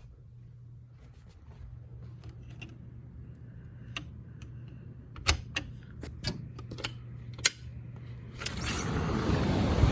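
Sliding balcony door's latch and frame clicking and knocking several times. Near the end, wind on the microphone and the wash of ocean surf come in loudly as the door opens.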